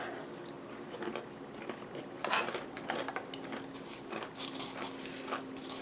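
Chewing a mouthful of yogurt and granola, with small crunches and a few light clicks of a metal spoon against a bowl, the loudest about two seconds in.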